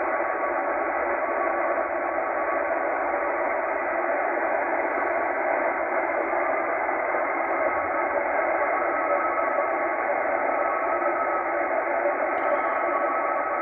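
Tecsun H-501X shortwave receiver in upper-sideband mode giving a steady hiss of band noise, with a weak NAVTEX data signal faintly present as steady tones under the noise. The signal is too noisy to decode.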